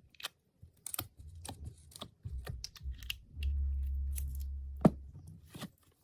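Slime being worked by hand, giving off irregular sticky clicks and pops, one louder pop near the end. A low steady hum joins about halfway through.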